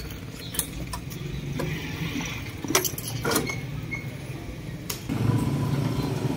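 Yamaha Mio i 125 scooter's single-cylinder four-stroke engine running steadily at idle, with a few sharp clicks over it. About five seconds in it gets louder and closer as the scooter is ridden.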